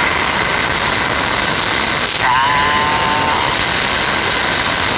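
Loud, steady noise: an even rushing hiss with no rhythm or change. About two seconds in, a brief voiced sound rises and then holds for about a second.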